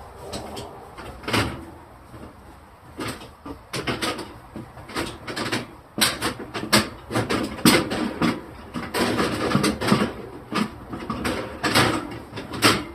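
Irregular knocks, clunks and rattles of containers and plastic fridge parts being handled and set into a refrigerator, busier in the second half.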